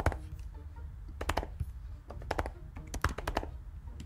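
Computer keyboard typing: short runs of keystrokes with brief pauses between them, as names and an email address are entered.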